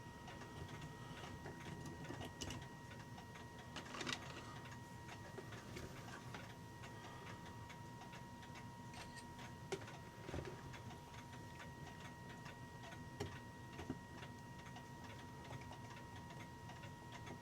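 Faint ticking of clocks running, with a few small metallic clicks and taps from brass clock-movement parts being handled.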